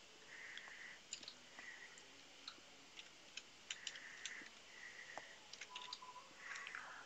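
Faint, scattered clicks of computer keyboard keys and a mouse as a short file name is typed in.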